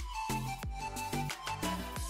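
Background music with a steady beat of short, pitched notes.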